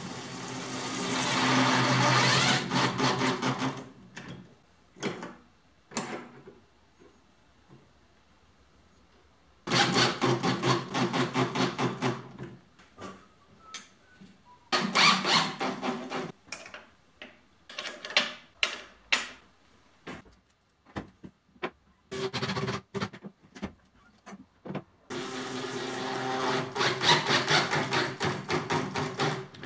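Power drill running in five bursts of two to four seconds, with fast ticking through each run, as screws are driven or holes drilled into plywood. Separate clicks and knocks come between the runs.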